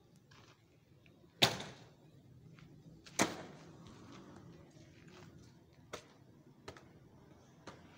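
Two sharp bangs about a second and a half apart, each ringing briefly, followed by a few faint clicks.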